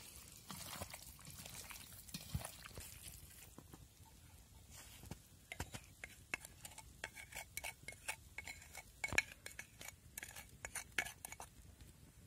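Hands squishing marinated fish pieces in a stainless steel colander, then, from about five seconds in, a spoon scraping marinade out of a clay pot with many sharp clinks and scrapes against the pot and colander.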